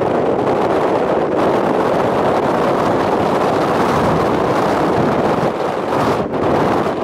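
Steady wind buffeting the microphone on an open chairlift, with a brief lull about six seconds in.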